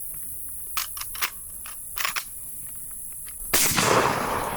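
Shotgun blast about three and a half seconds in, trailing off over about a second, with a second blast right at the end. Fainter distant shotgun pops come earlier.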